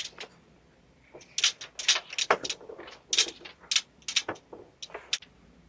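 Someone working the handle and lock of a locked front door, with keys, over a doorbell camera's microphone: an uneven run of sharp metallic clicks, clacks and rattles.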